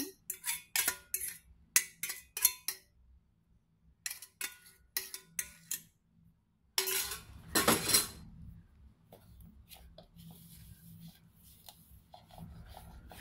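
Wooden chopsticks clicking and scraping against a stainless steel bowl as beaten egg is scraped out of it, with a longer, louder scrape about seven seconds in. After that comes the faint scratchy sound of chopsticks stirring egg into flour in the mixing bowl.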